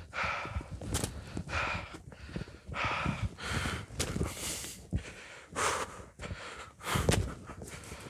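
Boot kicks thudding against a broken tree stump, with a hard breath or grunt of effort about every second and a half, and footsteps in snow.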